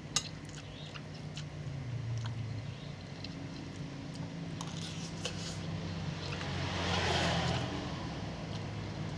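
Close-up eating sounds of someone gulping down instant mie goreng (fried noodles): scattered sharp mouth and utensil clicks. Behind them is a steady low engine hum that swells for a moment about seven seconds in.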